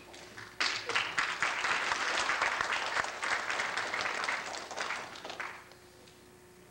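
Audience applauding: it breaks out suddenly about half a second in, holds for a few seconds and dies away after about five seconds.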